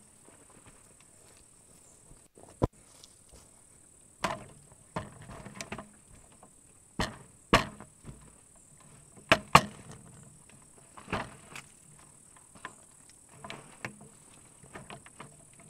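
An irregular series of sharp knocks and clacks, about a dozen, some in quick pairs, with the loudest just after halfway, over a steady high-pitched drone.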